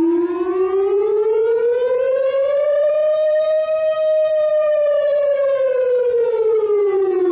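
Civil defense siren sounding one long wail as a public emergency warning: the pitch rises slowly for about four seconds, then falls away again.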